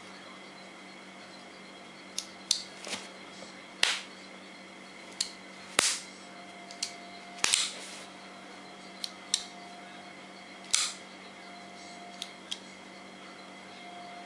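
Folding pocket knife being flicked open and shut one-handed, the blade snapping into place with sharp metallic clicks: about a dozen at uneven intervals, several in quick pairs.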